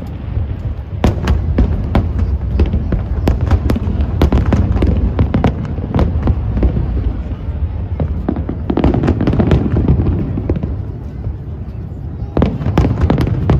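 Aerial fireworks going off: a dense run of booms and crackling bangs over a low rumble, easing briefly near the end before another cluster of bangs.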